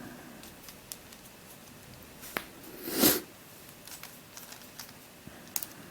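Quiet handling of a plastic puzzle cube: a few small sharp clicks and ticks, with one short breathy sniff about three seconds in.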